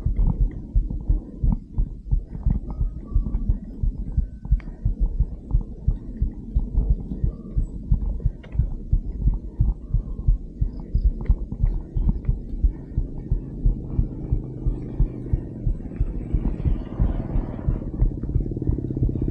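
Dull low thumps, about two or three a second, repeating steadily, over a low hum that grows louder near the end.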